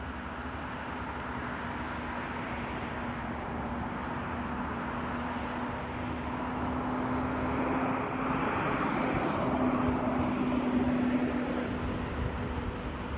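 A vehicle's engine passing by: a steady hum over a background hiss swells to its loudest about ten seconds in and then fades.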